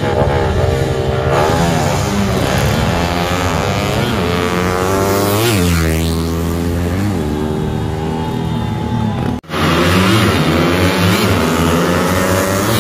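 Two small single-cylinder drag-race motorcycles running hard, engine pitch climbing and dropping again and again with each gear change. The sound cuts out for an instant about nine seconds in, then the revving picks up again.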